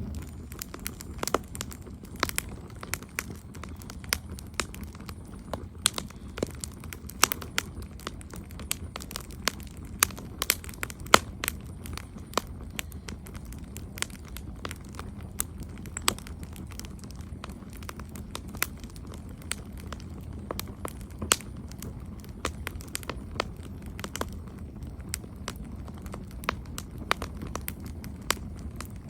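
Wood fire crackling: irregular sharp pops and snaps, a few a second, over a steady low rumble of the flames.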